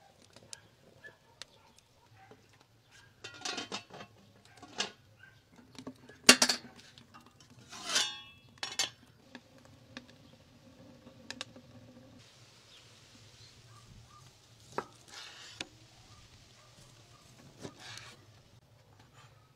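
Scattered clinks, knocks and scrapes of cookware and utensils being handled. The loudest is a sharp knock about six seconds in, with a scrape a couple of seconds later. Near the end a knife cuts through ham on a wooden board.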